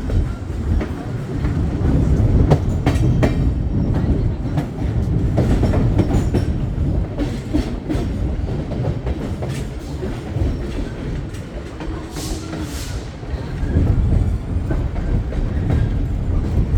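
Passenger train rolling along the track: a steady low rumble with irregular clicks and knocks of the wheels over the rails. About three quarters of the way in there is a short hiss.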